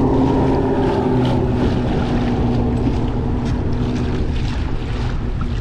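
Motorized fishing kayak under way at speed: the motor gives a steady whine while water rushes and splashes along the hull, with wind on the microphone.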